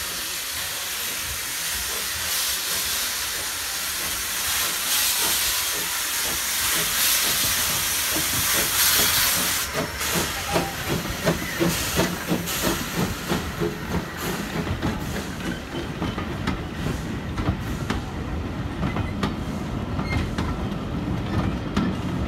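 LB&SCR Terrier 0-6-0 tank engine No. 2678 pulling away, its cylinder drain cocks hissing steam loudly. The hiss cuts off about ten seconds in, and the vintage coaches roll past with a steady run of wheel clicks and a rumble that grows toward the end.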